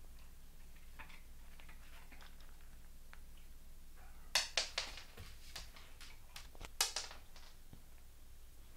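Sharp clicks and taps from a young American Staffordshire Terrier eating and moving on a wooden floor: a quick cluster of three about four and a half seconds in, two more near seven seconds, and fainter taps between.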